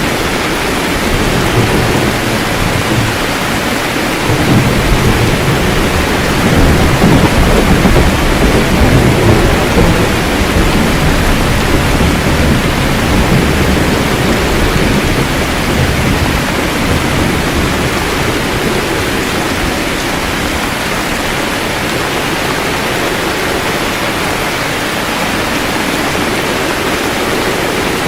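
Rain falling steadily with a low rumble of thunder that swells about four seconds in and eases off over the following several seconds.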